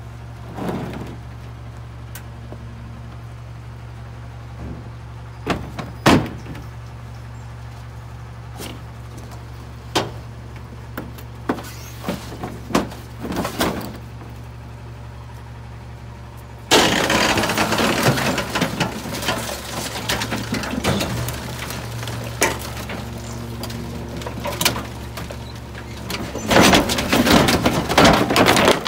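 McNeilus rear-loader garbage truck idling with scattered knocks and thuds as bulky furniture goes into the hopper. A little past halfway the hydraulic packer suddenly starts its cycle, loud and grinding, and near the end wood cracks and splinters as the blade crushes the furniture.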